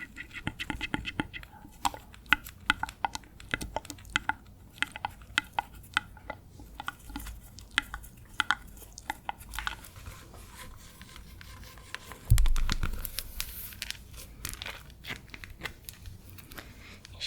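Close-miked ASMR sounds: many quick, irregular clicks and crackles. A loud thump comes a little past the middle, followed by a brief rustle.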